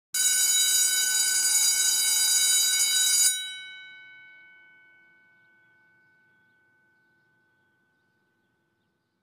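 An alarm bell rings loudly for about three seconds, then stops suddenly and its ring fades away over the next few seconds.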